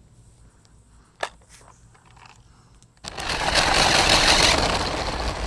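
Remote-control buggy, with a phone strapped to it, setting off over rocky ground: after a quiet stretch with one sharp click, a sudden loud crunching, rattling noise begins about three seconds in and slowly eases off.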